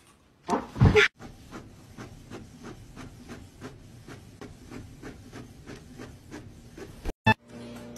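Inkjet printer printing, its print head shuttling with an even run of short strokes about four times a second as a sheet feeds out. A brief loud burst comes about half a second in, and a sharp knock near the end.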